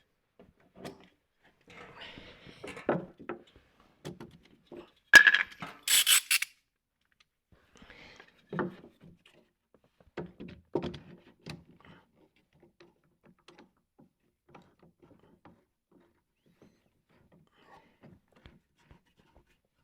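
Scattered knocks and clatter of wooden parts and tools being handled, loudest about five to six seconds in, then only faint occasional taps.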